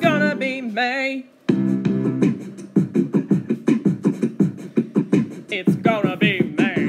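Pop music: a sung phrase ends about a second in, then after a brief drop a fast, clipped beat over steady bass notes, with a short sung run near the end.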